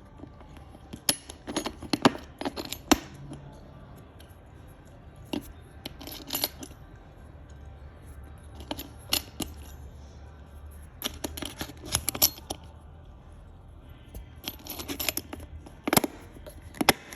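Small clicks and clinks of latch hardware being handled: spacers being slid onto the screws of a gate latch catch, coming in short clusters.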